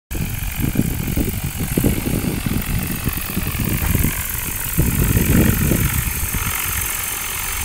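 Small unmanned helicopter in flight, its rotor and motor giving a steady whirring noise, with wind buffeting the microphone in uneven low rumbles.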